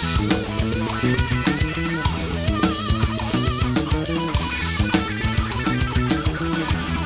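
Live band playing an instrumental passage: a Telecaster-style electric guitar and an electric bass over a drum kit keeping a steady, even beat, with wavering held notes above.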